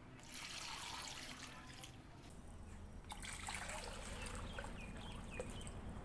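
Water poured from a plastic jug trickling and splashing into a tray of pebbles, with a few small drip plinks near the end.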